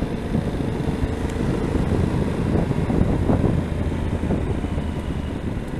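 Yamaha XT1200Z Super Ténéré's parallel-twin engine running steadily while riding, mixed with wind rush on the microphone.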